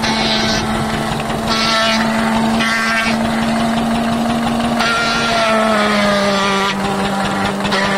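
Belt-driven agave fibre-extraction machine running with a steady machine hum, broken by several harsh scraping bursts as agave leaves are fed into the spinning drum and the pulp is beaten off the fibre. The hum drops slightly in pitch about five and a half seconds in.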